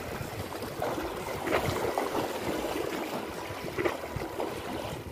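Small sea waves lapping and splashing against shoreline rocks, with a couple of louder splashes, about a second and a half in and near the end.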